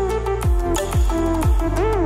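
Background music: a melody with sliding, bending notes over deep bass-drum hits.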